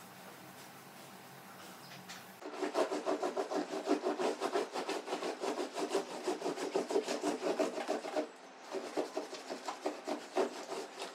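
Cloth and gloved hand scrubbing the surface of a leather sofa in quick back-and-forth strokes. The scrubbing starts about two and a half seconds in and stops briefly around eight seconds before carrying on.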